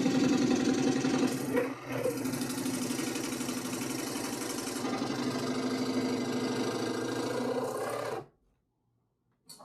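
Power saw cutting through a plastic motorcycle saddlebag lid: a fast, dense buzzing rhythm with a brief let-up about two seconds in, stopping abruptly about eight seconds in as the cut is finished.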